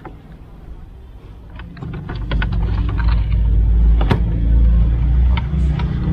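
Plastic clicks and knocks of a car head unit, its wiring and the dashboard trim being handled and pushed into the dash, the sharpest about four seconds in. A low rumble sets in about two seconds in and is the loudest sound from then on.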